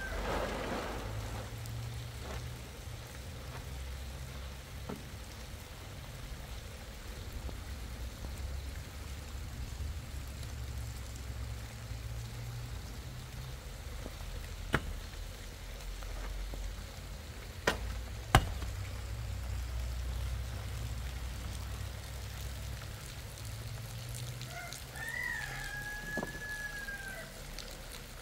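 Steady rain falling, with a low rumble underneath. There are three sharp knocks around the middle, and a brief high call near the end.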